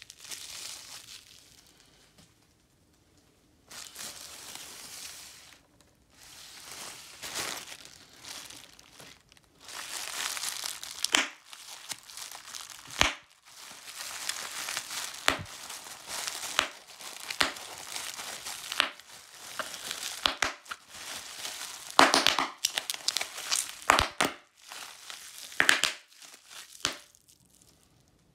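Clear plastic bubble wrap being crumpled and pressed by hand, crinkling in stretches with short pauses, with sharp pops of bubbles bursting, the loudest pops in the second half.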